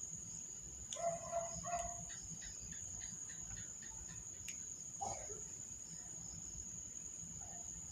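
Faint background sounds: a steady high-pitched whine, with two short animal-like calls about a second in and another near five seconds.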